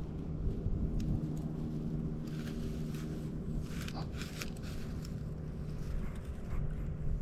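A motor vehicle's engine running with a steady low hum, along with a few faint light ticks.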